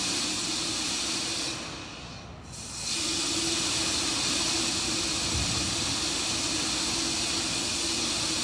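Steady hissing from the Terran 1 rocket on its launch pad as it vents propellant vapour in the last seconds of the countdown, with a faint steady hum underneath. The hiss dips sharply about two seconds in, then comes back at the same level.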